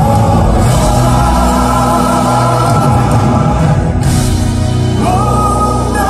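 Live gospel vocal group singing with a choir and band, heard through the hall's sound system. Long held notes, moving up to a higher held note about five seconds in.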